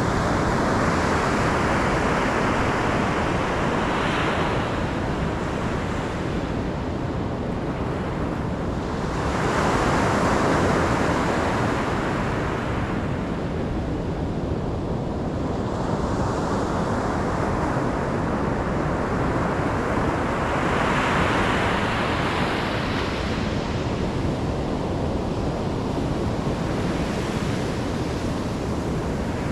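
Ocean surf breaking and washing ashore continuously, swelling and easing every several seconds as successive waves come in.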